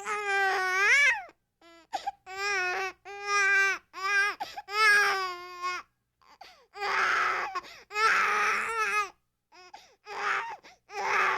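A baby crying in frustration: a run of wailing cries, each about a second long, with short pauses for breath between them. Around the middle the cries turn harsher and raspier for a couple of seconds, then break into shorter wails.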